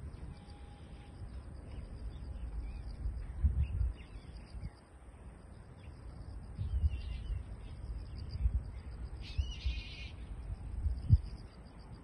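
Outdoor riverside ambience: low rumbling gusts on the microphone with a sharp thump about eleven seconds in, over a faint, steady, high pulsing trill of insects. A short chirp sounds about nine seconds in.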